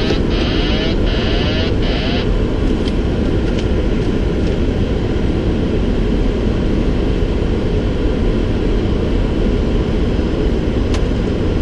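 Steady rush of airflow and engine noise on a Boeing 737-700's flight deck during final approach. A brief crackly buzz comes in the first two seconds.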